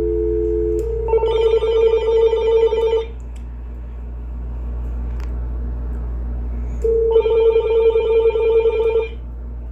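A steady dial tone cuts off about a second in. Then the Uniden EXAI7980 cordless phone rings twice with a warbling electronic ring, each ring about two seconds long with a four-second pause between, as an incoming call comes in before the answering machine picks up.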